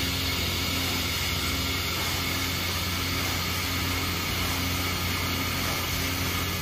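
1992 Mori Seiki MV-40M vertical machining center running, its spindle turning under light load: a steady whirring hum, with a faint higher tone that comes and goes.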